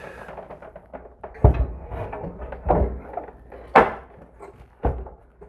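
Fronius Primo GEN24 string inverter being hung onto its wall mounting plate: about four clunks and knocks, the sharpest a little under four seconds in, with lighter clicks between.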